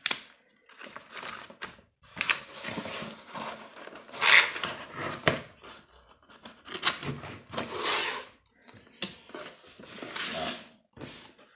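Cardboard boxes being handled: a small cardboard accessory box folded shut and moved about, with a series of rubbing and scraping sounds and a few sharp knocks.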